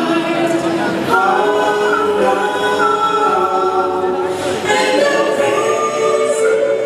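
Choral music: a choir singing long held chords, moving to new chords about a second in and again near five seconds in.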